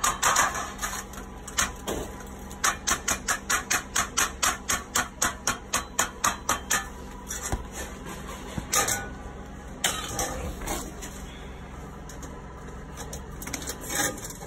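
A hammer tapping sheet-metal counter flashing along the top of a brick chimney: quick, even knocks at about three a second, stopping about seven seconds in. A few separate knocks and clicks follow.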